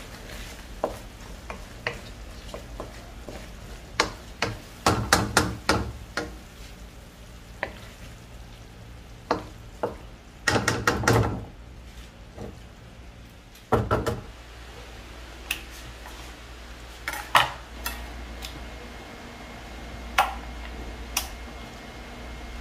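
Wooden spatula stirring chicken wings in a simmering coconut-milk sauce, knocking and scraping against the pan in short irregular clusters, over a faint sizzle of the sauce.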